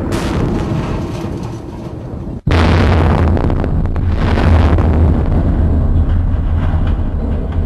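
Explosion of a 200-pound TNT and 5-pound C4 charge, its rumble dying away. About two and a half seconds in it cuts off and a second blast starts suddenly, followed by a heavy low rumble that carries on.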